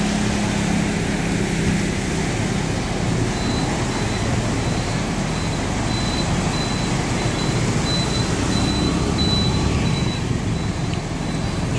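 Road traffic driving through floodwater: motorcycle and car engines running while tyres splash and hiss through the water on the road. A faint, high-pitched intermittent beeping runs through the middle.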